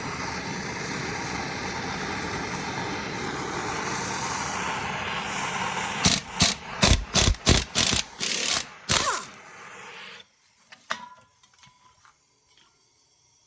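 Torch burning with a steady hiss as it heats a seized wheel bearing bolt. About six seconds in, a stubby impact wrench hammers in about eight short bursts, spinning the hot bolt out easily. A few light clicks follow.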